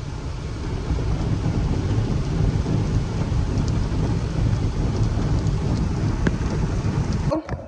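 Automatic car wash working over a car, heard from inside the cabin: a steady, heavy rush of water spray and machinery drumming on the body. It cuts off suddenly near the end, followed by a couple of clicks.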